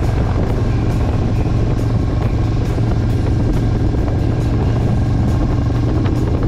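Steady low drone of a motor vehicle under way, with road and wind noise.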